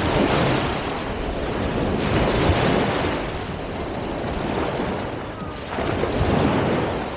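Sea surf washing onto the beach, rising in about three swells, with wind blowing across the microphone.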